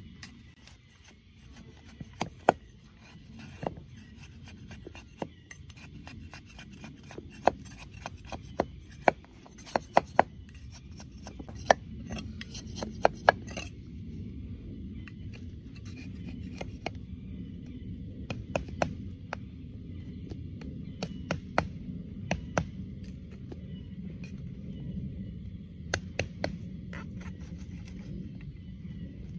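Wood being worked by hand with a blade: irregular sharp taps and scraping, over a low steady rumble.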